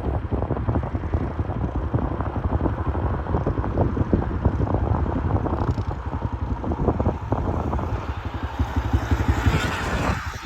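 Wind buffeting the helmet microphone over a steady rumble as a Sur-Ron electric dirt bike is ridden hard through deep snow.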